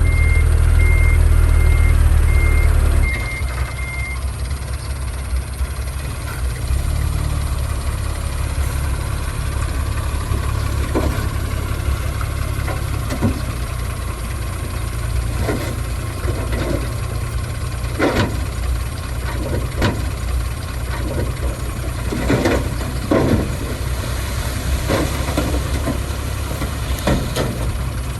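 Heavy diesel earthmoving machinery running on a road construction site. A reversing alarm beeps evenly over a loud engine for the first few seconds; then the engine drops to a lower, steady running sound, and irregular clanks and knocks sound through the second half.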